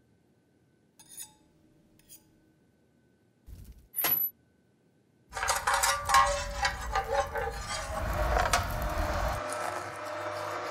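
A metal spatula clinks once against a perforated steel grill tray. Then glowing holm-oak embers on a grill crackle and hiss for about four seconds, and near the end a knife chops pork fat on a board in quick strokes.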